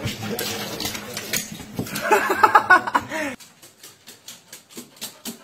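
A short vocal sound about two seconds in, then, from about three seconds in, a quick even run of light clicks: a dog's claws ticking on a hardwood floor.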